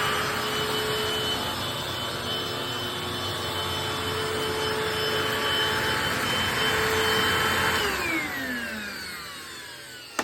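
Eureka Optima upright vacuum cleaner running with a steady motor whine as it is pushed over shredded paper. About eight seconds in it is switched off, and the whine falls in pitch as the motor spins down.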